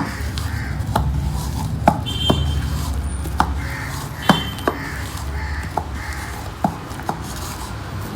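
Thick ground urad dal batter for medu vada beaten by hand with the open palm, making sharp wet slaps about once a second at an uneven pace.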